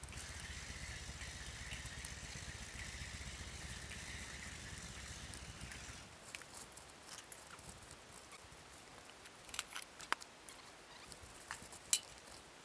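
Steady wind rumble on the microphone with faint rattling of carried gear, which stops suddenly about six seconds in. Then a few sharp clicks and ticks of a wire-mesh crab trap and its line being handled on a wooden deck, the loudest click near the end.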